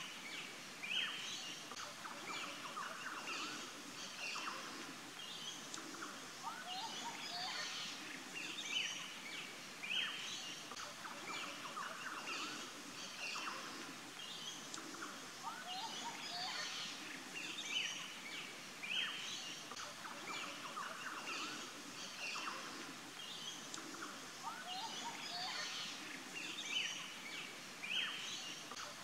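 Birds chirping and calling in a busy, continuous chorus of short high notes, with a louder pair of calls roughly every nine seconds.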